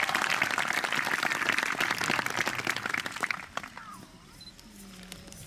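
Audience applauding, with some voices mixed in, dying away about three and a half seconds in.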